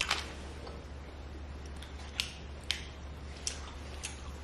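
Sharp plastic clicks and crackles from a thin black plastic candy tray being handled as pieces are picked out, about five separate clicks spread over a few seconds.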